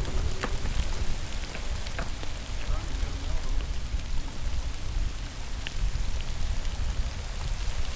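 Steady rain with scattered drops ticking close by, over a heavy, uneven low rumble of wind buffeting the microphone in stormy weather.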